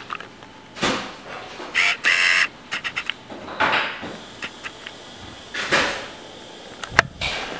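Handling noise from a camera being carried and moved about: a string of short rustles and scrapes with scattered knocks and clicks, and one sharp click near the end.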